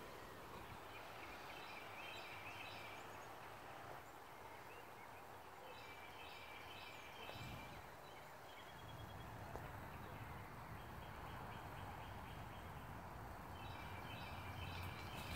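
Faint outdoor ambience with a low steady hum, broken by several short bursts of rapid, high chirping calls.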